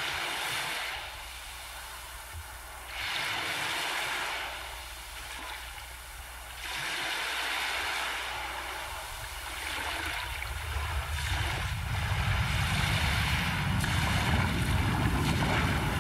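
Sea waves washing in, rising and falling in surges every three to four seconds. From about ten seconds in, a low rumble builds and becomes the loudest sound.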